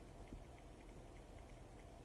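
Near silence: faint room hum with faint, evenly spaced ticking and one soft knock about a third of a second in.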